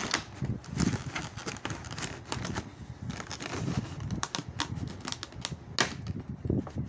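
Clear plastic packaging crinkling and crackling as hands unwrap a vinyl Funko Pop figure, in a run of irregular small clicks.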